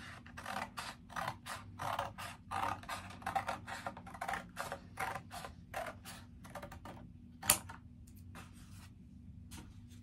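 Scissors cutting black paper: a steady run of short snips, about three a second, as a long strip is cut. The snips stop about seven seconds in, followed by one sharp click and a few softer paper sounds.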